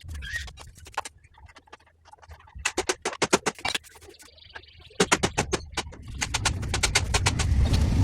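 Hand tools clicking and knocking against the motorcycle as the petrol tank is refitted: two runs of quick sharp clicks, about a second in length each, over a low rumble that builds toward the end.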